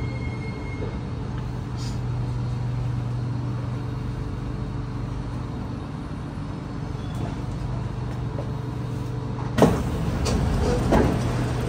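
Stationary Kawasaki C751B metro train humming steadily. About nine and a half seconds in, its passenger doors open with a sudden loud thump and a sliding rumble.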